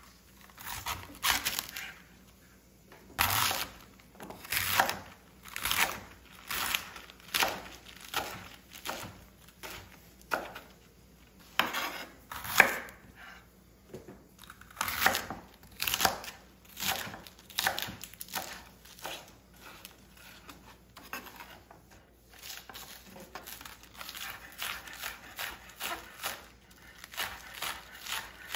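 Chef's knife cutting through bok choy on a bamboo cutting board: a crisp crunch and a knock of the blade on the board, about one cut a second. In the last third, quicker, lighter chopping of green onions, several cuts a second.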